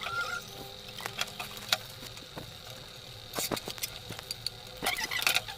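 Scattered light clicks and taps from RO purifier parts and fittings being handled during repair work, coming in small clusters about three and a half seconds in and again near the end, over a faint steady high tone.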